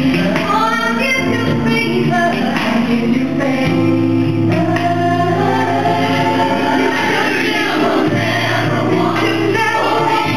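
Gospel song with a choir and female voices singing over sustained low bass notes.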